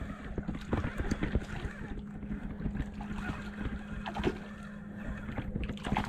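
Water sloshing with small knocks and handling noise, wind buffeting the microphone, over a faint steady low hum.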